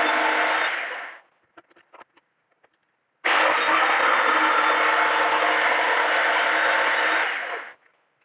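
An electric woodworking power tool running steadily on wood, stopping about a second in, a few light knocks, then switched on again with a sudden start and run for about four and a half seconds before winding down near the end.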